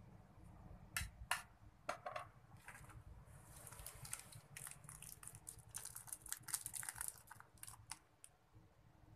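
A few sharp knocks, then clear plastic wrapping crinkling and crackling as a block of tamarind paste is pulled apart by hand.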